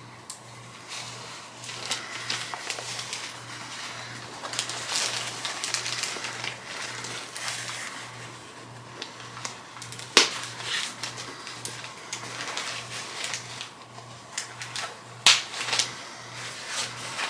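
Crinkling and rustling of packaging as an unboxed item is handled, with irregular crackles and a few sharp clicks, the loudest about ten and fifteen seconds in.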